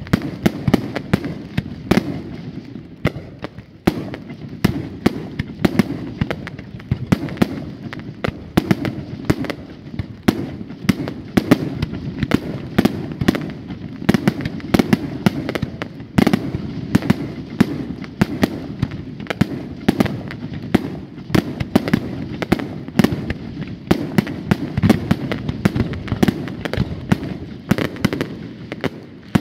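Fireworks display: a continuous rapid barrage of sharp bangs, several a second, over a steady low rumble from the explosions.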